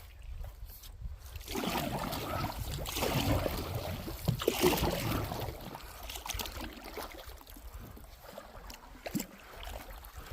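Canoe paddles dipping and swishing through shallow river water, with water trickling along the hull; the strokes are loudest in the first half.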